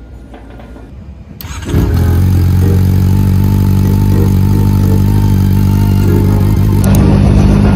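Honda CB400 Super Four's inline-four engine, breathing through a Yoshimura slip-on muffler, starts about a second and a half in, catches at once and settles into a steady idle.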